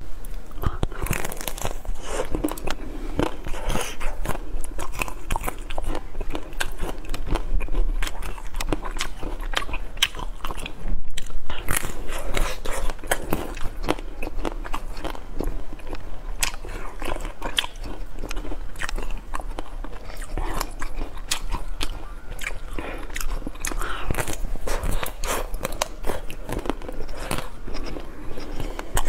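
Close-miked biting and crunching through the hard white chocolate coating of ice cream bars, with chewing between bites: many sharp cracks and crunches throughout.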